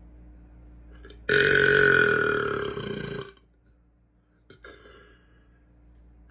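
A man's long, loud belch lasting about two seconds, fading and dropping slightly in pitch toward its end. A brief, fainter noise follows about a second and a half later.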